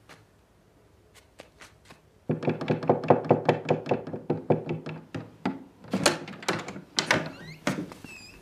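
Rapid run of knocks on a wooden door with glass panes, several a second, starting about two seconds in. A few high squeaks near the end.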